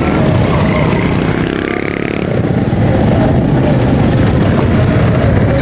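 Motorcycle engine running steadily as the bike rides along, a loud continuous rumble.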